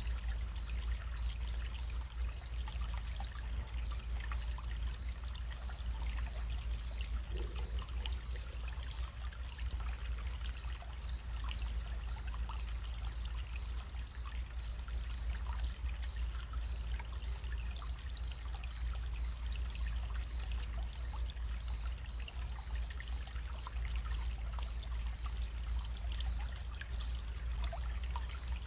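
Small stream running steadily: a continuous trickle and babble of water with many small splashes, over a steady low rumble.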